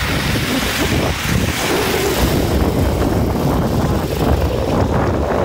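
Wind buffeting the phone's microphone, a loud, uneven low rumble over a steady rushing noise.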